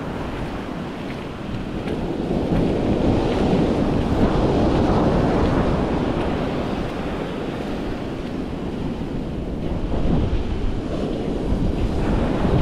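Surf breaking and washing up the sand, with wind buffeting the microphone. The wash swells about two seconds in and again near the end.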